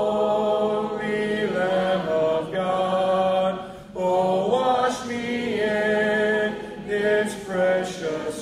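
Congregation singing a hymn a cappella in several-part harmony, led by a man at the microphone, in held notes with short breaks between phrases.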